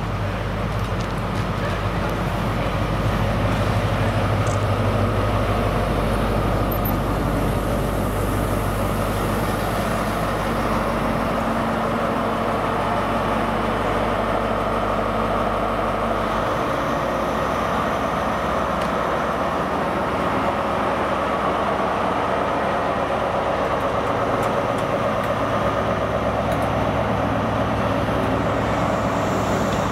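CrossCountry HST's class 43 diesel power car, its MTU engine running in a steady deep drone at close range. The lowest part of the engine note drops away a little over halfway through, while the rumble carries on.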